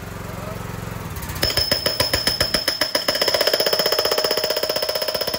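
A hand-held hydraulic breaker starts up about a second and a half in. Its chisel bit hammers rapidly and evenly into a wooden plank, with a high metallic ring. Before it starts, only a steady machine hum is heard.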